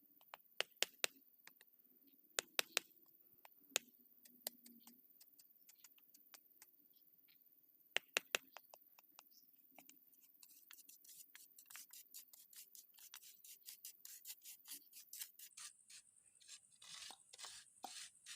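Concrete paving blocks being laid: sharp clicks and knocks as block meets block, in small groups of two or three. From about ten seconds in they give way to a fast run of light taps and scrapes.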